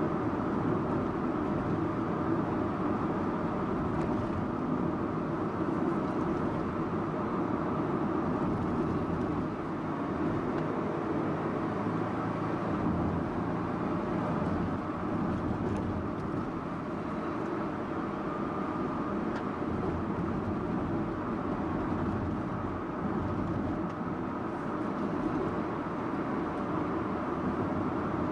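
Subaru Impreza Sports Wagon (GG2) driving along: a steady mix of tyre and road noise with the hum of its flat-four boxer engine, dipping slightly about ten seconds in.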